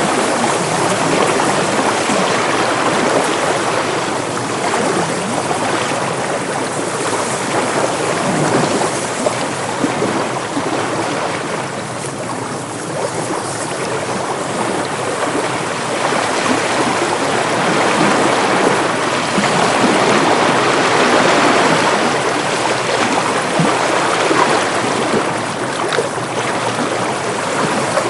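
Sea waves washing in with wind: a continuous rush of surf that swells and eases slowly, dipping a little about twelve seconds in before building again.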